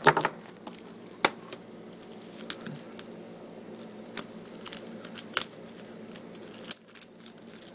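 Hands handling a plastic DVD case: soft rubbing and rustling as fingers work over the case, with several scattered sharp clicks.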